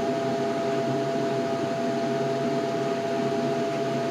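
Heavy crushing machine running steadily, heard from inside its operator's cab: an even hum with a constant whine over it.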